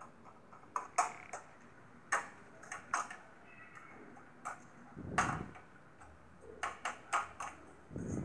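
Metal spatula tapping and scraping in a kadai while fried prawns are mashed for a stuffing: a scatter of light clicks and knocks, about ten in all, with one fuller knock a little past the middle.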